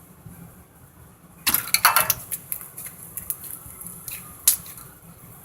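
A quick run of clicks and clatter about one and a half seconds in, a few faint ticks after it, and a single sharp click near the end.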